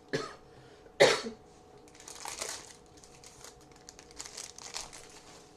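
Two short coughs about a second apart, the second one louder. Fainter rustling of cards being handled follows.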